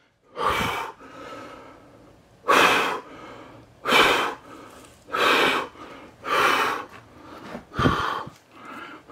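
A man breathing hard and loud close to the microphone: about six heavy breaths, one every second or so.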